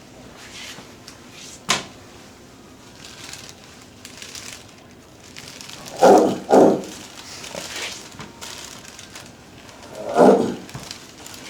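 Chiropractic adjustment: a sharp click, then short grunts with the thrusts, two close together about six seconds in and another near ten seconds.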